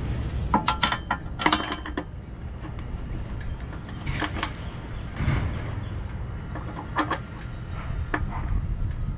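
Metal clicking and clinking from a socket on an extension and a bolt against the steel jacking rail and the car's underbody. It starts with a quick cluster of ringing clicks, then single clinks every second or so as the bolt is fitted.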